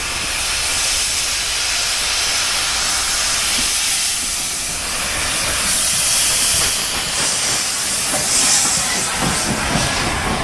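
Steam locomotive passing close by, a loud steady hiss of steam over the rumble of the train. Near the end the coaches' wheels start knocking over the rails as they roll past.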